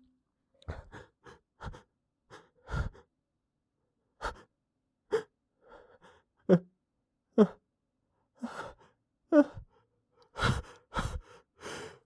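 A man's short, sharp gasping breaths, about a dozen at uneven intervals, some with a brief voiced catch. These are the hitching in-breaths of a sneeze coming on that he is holding back.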